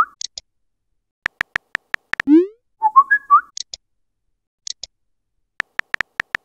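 Phone-keyboard typing clicks, then a short rising whoosh as a message is sent, followed by a quick chirpy notification jingle and a couple of brief high pings. Typing clicks start again near the end.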